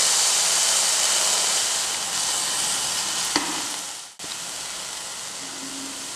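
Fresh sprouted greens sizzling in hot oil in a non-stick pan, a steady frying hiss that drops abruptly to a quieter sizzle about four seconds in. A single light tap comes shortly before the drop.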